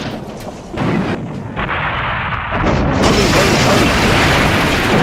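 Dense crashing and booming rumble of destruction sound effects, stepping up in loudness about a second in and growing heavier about three seconds in.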